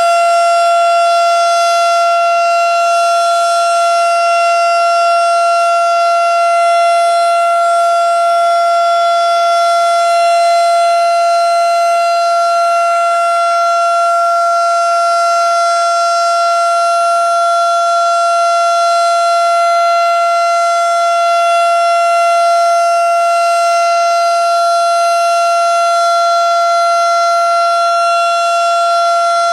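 Outdoor tornado warning siren sounding one steady, unwavering tone, loud throughout.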